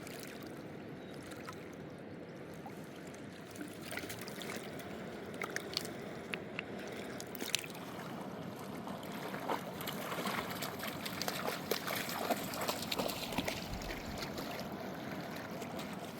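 River water trickling and splashing, with scattered small clicks and knocks that grow busier past the middle.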